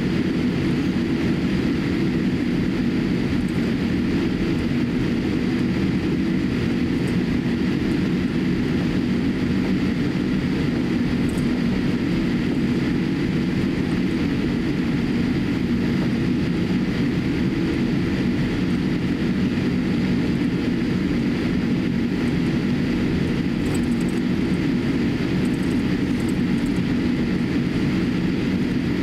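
Steady low drone inside the cabin of a Boeing 787-8 taxiing, its GE GEnx-1B engines at taxi power, with a few faint steady whine tones above the hum.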